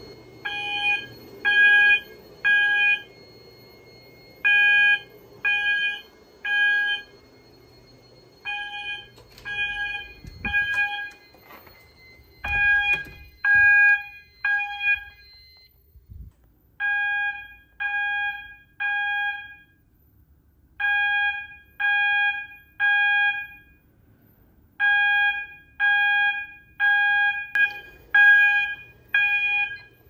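Fire alarm horns sounding the temporal-three evacuation pattern, repeated groups of three shrill beeps with a pause between groups: the system in alarm after a smoke detector tripped. Near the end the beeps run together without the pause.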